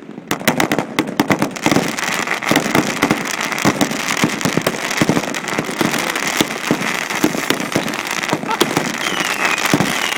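Saturn missile battery cake, about 150 shots, going off all at once: a dense, continuous rapid crackle of small reports over a steady high whistle, with a few falling whistles near the end. The cake is self-destructing because it was fired without its cardboard.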